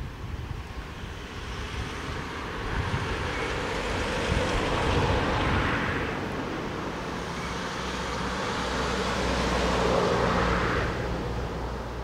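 Passing engine noise, a broad rushing sound with a low hum, swelling to a peak about five seconds in, easing, swelling again about ten seconds in and then fading.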